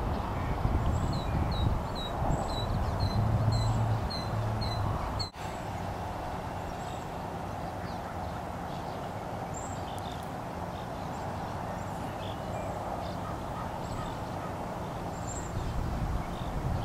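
Osprey calling: a run of about ten short, sharp whistled notes, two or three a second, over a low rumble. About five seconds in the sound cuts out for an instant, after which only a few scattered faint chirps over a steady hiss remain.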